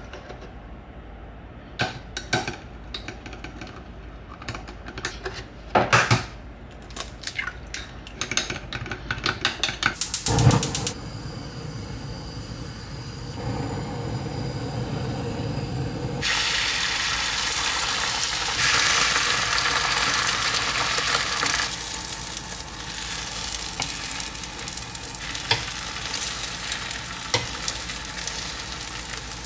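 Kitchen utensils knocking and clinking against cookware, then food sizzling in a hot frying pan. The sizzle starts about eleven seconds in and grows louder a few seconds later.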